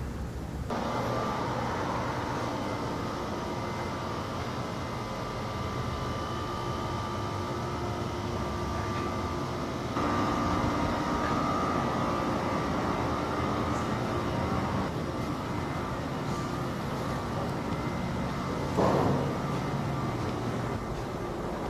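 Steady background hum and hiss of ambient noise, which shifts in character about a second in and again about ten seconds in, with a short knock near the end.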